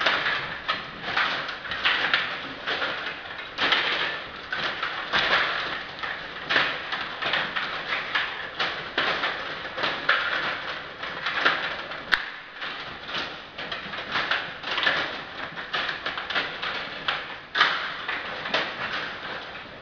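Stiga table hockey in play: a dense, irregular clatter of plastic clicks and knocks as the rods are pushed and twisted and the plastic figures and puck strike one another and the rink boards.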